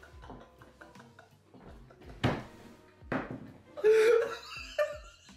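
A man and a woman laughing hard together, in breathy bursts, with a loud, high-pitched peal of laughter about four seconds in.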